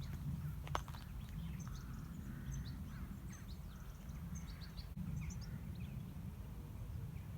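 Outdoor ambience: many short, high bird chirps scattered over a steady low rumble, with one sharp click about three-quarters of a second in.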